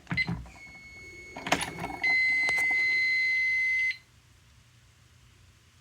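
Fire alarm annunciator being reset: a few clicks and a knock as its controls are worked, then its piezo buzzer sounds one steady high beep for about two seconds and cuts off.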